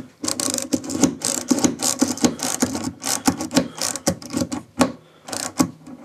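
A French flick screwdriver clicking quickly, about five clicks a second, as it drives a small brass screw into the record player's case; the clicking stops near the end.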